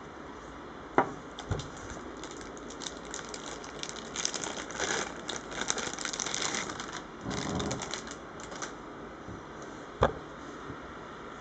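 Handling noise from a camera lens and its packaging. A sharp click comes about a second in and another near the end, with a run of light clicking and rustling in between.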